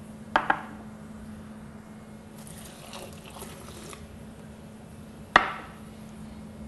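Water poured from a glass into a blender jar of chopped fruit, a short splash lasting about a second and a half. Near the start, two quick knocks as a small dish is set down on the counter; about five seconds in, the loudest sound, a sharp clink of the glass set down on the board.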